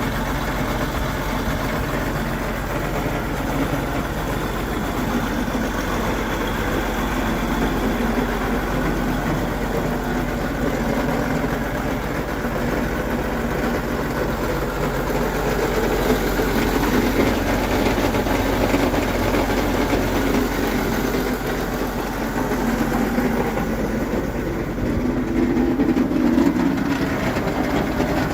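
Case 3294 tractor's diesel engine running steadily, a little louder for a few seconds around the middle and again near the end.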